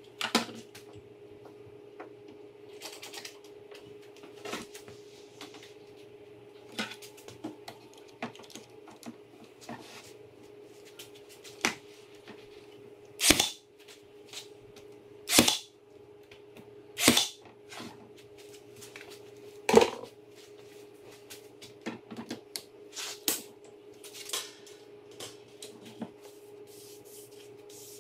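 A cordless brad nailer fires four shots into wood about halfway through, each a short sharp thwack, roughly two seconds apart. Between the shots come light clicks and knocks of handling the wood and a clamp, over a steady hum.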